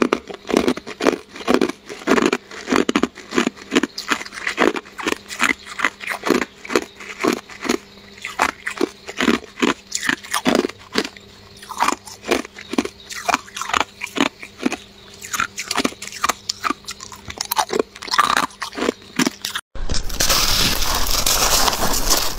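Hard clear ice being bitten and chewed, sharp crunches repeating about two or three times a second. Near the end the sound changes to a louder, denser, continuous crunching of crushed ice being eaten.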